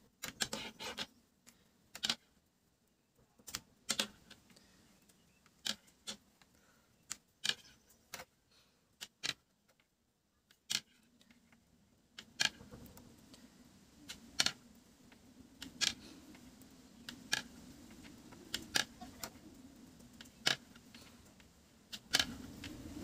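Metal knitting needles clicking against each other as stitches are worked: sharp, irregular clicks about once a second. From about halfway, a faint low hum runs underneath.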